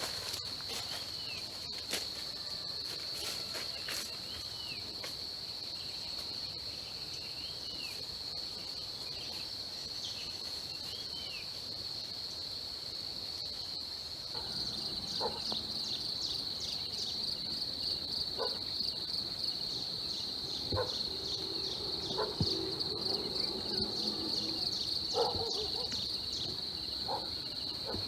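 Insects calling in a steady, high-pitched drone. About halfway through, a second, rhythmic pulsing chirp joins in, along with a few faint knocks.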